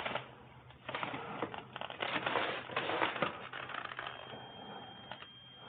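Metal anchor bolts being handled and rummaged through: irregular light clicks, clinks and rustling, busiest in the first half and dying away near the end.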